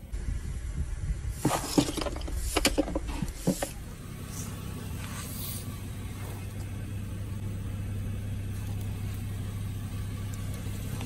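A car engine idling with a steady low hum while a tyre crushes plastic, giving a few sharp cracks and crunches between about one and a half and three and a half seconds in.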